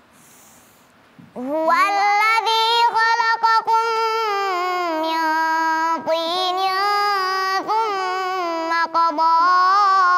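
A young girl reciting the Quran in melodic tilawah style, her single voice holding long, ornamented notes that bend slowly in pitch. The recitation begins about a second and a half in, after a short pause for breath.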